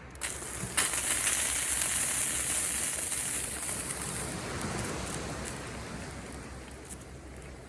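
Loud hissing and sizzling over a campfire with a Bialetti Moka Express coffee maker on it: the hiss comes on suddenly about a second in, stays strong for about three seconds, then dies down, with the fire crackling.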